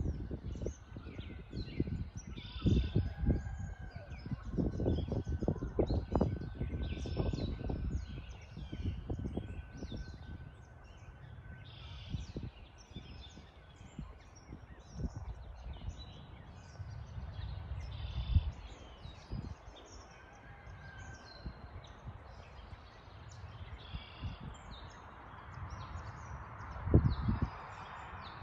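Several songbirds chirping and singing, with many short, high calls overlapping throughout. Irregular low rumbling bursts come and go beneath them, the loudest near the start and once near the end.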